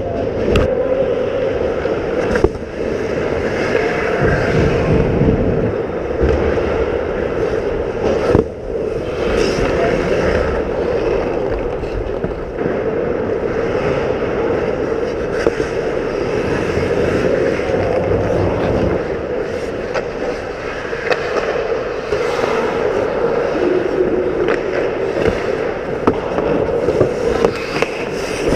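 Ice-hockey play heard from inside the goal: skate blades scraping and carving on the ice, with scattered sharp clacks of sticks and puck over a steady rink hum.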